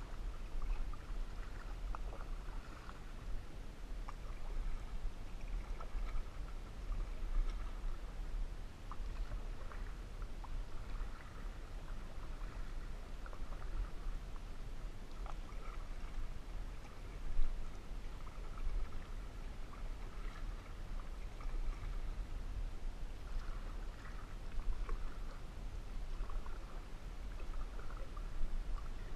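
Canoe paddle strokes in lake water, with irregular swishing, dripping and gurgling every few seconds over a steady low rumble. A single sharp knock comes about seventeen seconds in.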